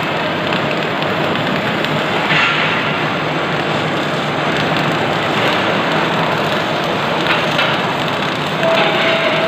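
CO2-shielded wire-feed welding arc crackling steadily, with a few brief louder flares.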